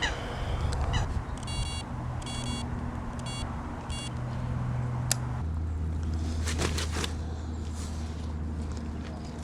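A bird calling four times in short, evenly spaced calls, over a steady low hum.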